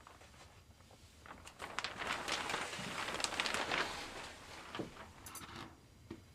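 Soft rustling noise with scattered light clicks, rising about a second and a half in and fading out after about four seconds.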